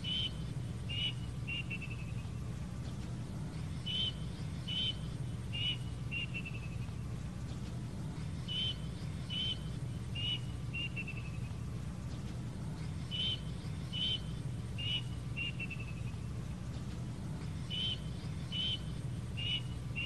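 Plaintive cuckoo calling the same phrase over and over, about every four and a half seconds: four clear whistled notes, the last running into a quick falling series of notes. A steady low hum runs underneath.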